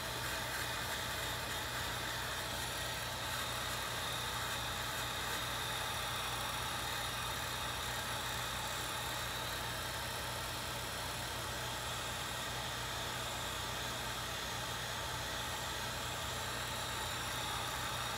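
Electric heat gun running steadily, its fan blowing hot air to shrink heat-shrink tubing over soldered connector wires: an even whir with a low hum and a hiss that does not change.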